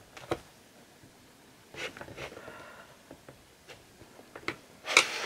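Quiet hand-working sounds of polymer clay being pressed and fitted together on a hard tile surface: a few light taps and soft rustles, with a louder rustle near the end.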